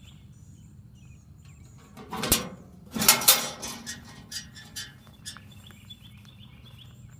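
A clunk about two seconds in, then rustling and a few smaller clicks, as a mailbox is opened and a parcel is handled. Small birds chirp faintly in the background.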